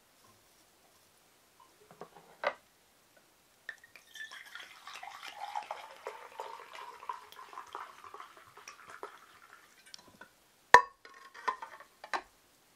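Sake poured from a glass bottle into a metal sake-warming cup, a steady trickle whose pitch rises as the cup fills, lasting about six seconds. Near the end come a sharp metal clink, the loudest sound, and two lighter clinks as the cup is set into the hot-water pot; a single knock sounds about two seconds in.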